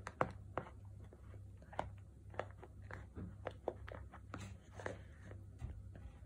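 A toddler chewing strawberry pieces, with small irregular smacks and clicks of the mouth several times a second.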